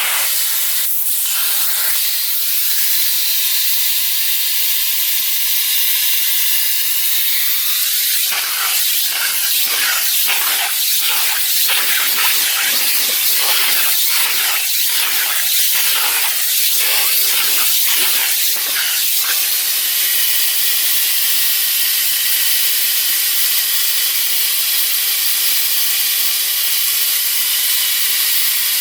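Electrolux Ergospace canister vacuum cleaner running, a steady rush of suction air over a faint motor whine. For about ten seconds in the middle the airflow sound wavers rapidly and unevenly as it vacuums.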